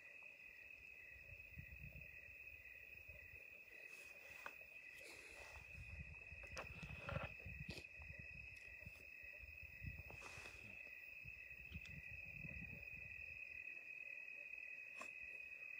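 Faint, steady high-pitched chorus of crickets, with a few soft clicks and low rustling rumbles in the middle.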